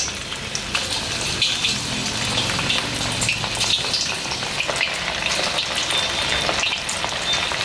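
Raw mutton-mince kababs deep-frying in hot oil in an iron kadai: a steady, dense sizzle full of small pops and crackles.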